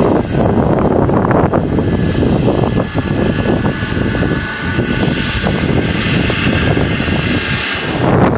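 GE90 turbofan engines of a Boeing 777-200ER running at low taxi thrust: a steady loud rumble with a faint high whine over it.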